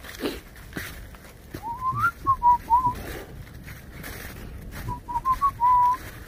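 A person whistling two short tune-like phrases: the first opens with an upward slide and warbles, the second ends on a held note. Faint footsteps in dry leaf litter lie underneath.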